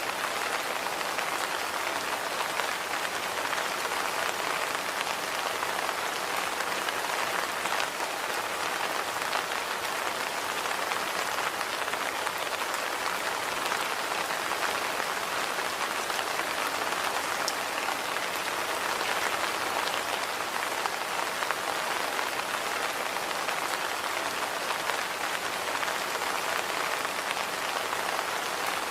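Steady rain falling, an even hiss with the faint ticks of single drops landing here and there.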